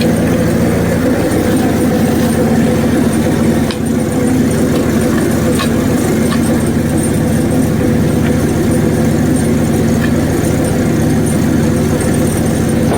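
Hudson HFE30 bandsaw sawmill's small gas engine running steadily, with a few light clicks and knocks over it.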